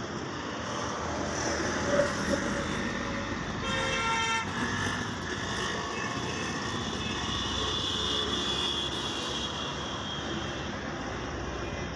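Steady road-traffic noise with a vehicle horn sounding once, briefly, about four seconds in.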